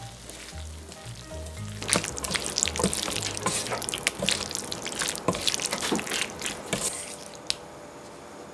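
Spicy squid stir-fry sizzling in a frying pan as it is tossed with two silicone spatulas, with rapid clicks and scrapes of the spatulas against the pan. The tossing is busiest from about two seconds in until about seven seconds, then eases off. Soft background music with a bass line plays under it.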